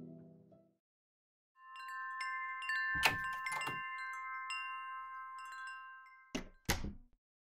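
Chimes ringing: several bright metal tones struck one after another from about one and a half seconds in, a quick cluster of strikes about three seconds in, then ringing on and fading, with two sharp clicks near the end. Before that, the last notes of soft plucked music fade out in the first second.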